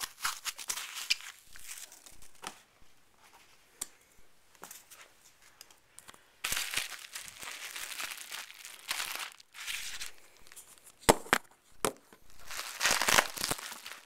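Plastic packing material, including bubble wrap, being handled and unwrapped: irregular bursts of crinkling and rustling, with a few sharp clicks a little past the middle.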